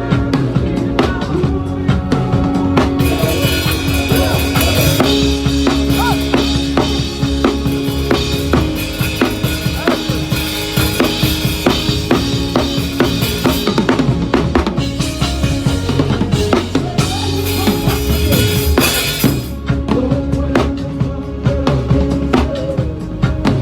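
Drum kit playing a groove of kick, snare and rimshots while other instruments hold pitched notes underneath. Cymbals ring out from about three seconds in and stop a few seconds before the end.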